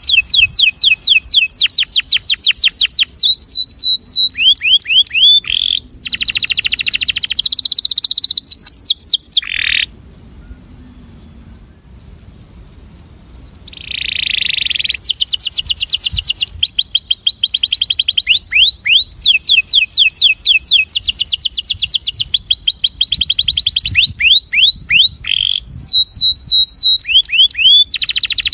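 Male domestic canary singing: fast trills of rapidly repeated, down-sweeping whistled notes, each phrase at its own pitch and speed. A buzzier, rattling phrase comes a few seconds in, and the song breaks off briefly about a third of the way through before the trills resume.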